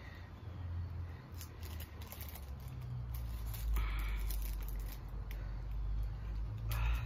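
Crinkling and rustling of a plastic package and a pack of rolling papers being handled while a joint is rolled, with scattered sharp crackles. A low rumble comes in about three seconds in.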